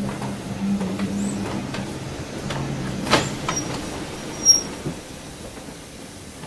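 Rebuilt Bulleid West Country 4-6-2 steam locomotive moving slowly away into the shed yard: a steady low hum with scattered clicks and knocks, a sharp metallic click about three seconds in and a brief high squeak about a second later, growing quieter toward the end.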